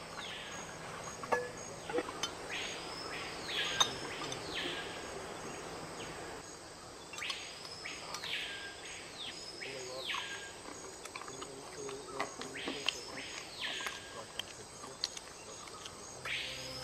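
A bird repeatedly giving a loud whistled call that sweeps up and then drops, several calls in pairs and threes, over a steady background of insects. A few light clinks of plates and spoons sound between the calls.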